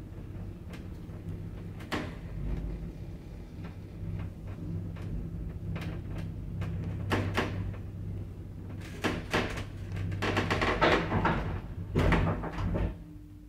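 A 1990 ZREMB passenger lift travelling in its shaft: a steady motor hum in the car, with repeated knocks and clattering as it passes landing doors. The clatter is loudest toward the end. Near the end the hum cuts out as the car comes to a stop.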